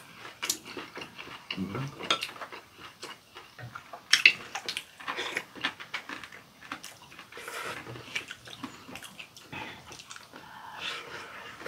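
Chopsticks and metal spoons clicking against ceramic bowls, with chewing and slurping of spoonfuls of soup. The loudest slurp or clink comes about four seconds in.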